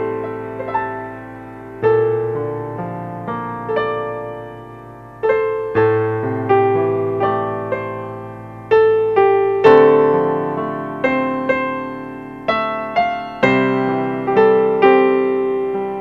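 Solo piano music: notes and chords struck one after another, each left to ring and die away.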